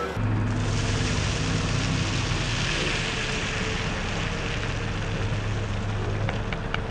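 A Case 580 Super backhoe loader's diesel engine runs steadily with a low hum while gravel pours from its raised front bucket onto a pile. The falling stone gives a hiss that is strongest about three to four seconds in, and a few light clicks come near the end.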